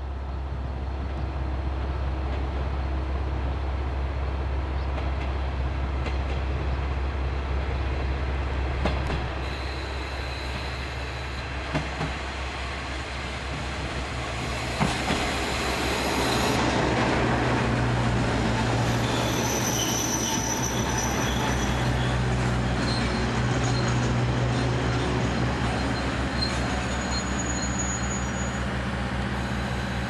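KiHa 47 series diesel railcar running into a station: a steady low drone from its diesel engine and rolling wheel noise, a few sharp clicks from the rails, and thin high squeals from the wheels in the second half as it slows.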